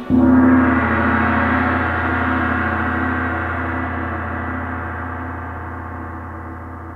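A single gong stroke right at the start, its deep ring sustaining and slowly fading away as the final note of the song after the band stops.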